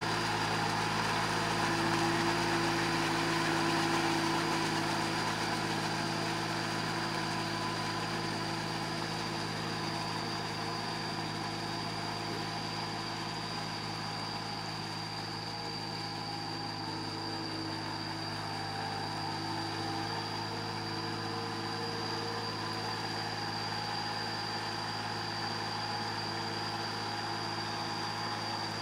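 Kubota L3408 diesel tractor on cage wheels running steadily under load while dragging a levelling board through a flooded rice paddy. The engine is a little louder in the first few seconds, then eases slightly as the tractor moves away.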